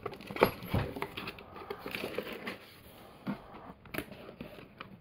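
Packaging rustling and crinkling as a new Staub wok is unpacked, with a sharp knock about half a second in and a few lighter clicks later.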